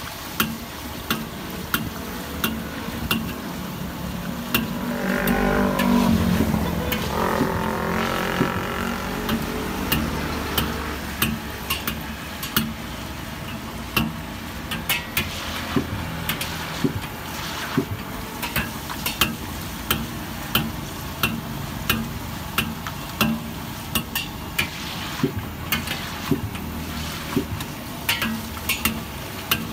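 Sweet potato balls deep-frying in a wok of hot oil, a steady sizzle, while a stainless steel ladle stirs them and taps against the wok in regular strokes a little faster than once a second. A louder droning sound swells and fades between about five and nine seconds in.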